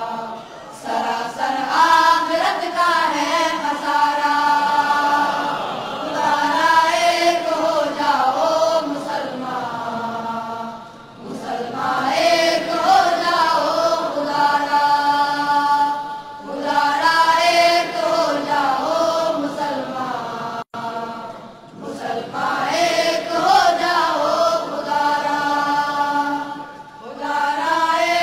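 Vocal chant sung without instruments, in long melodic phrases of a few seconds each, separated by short breaths.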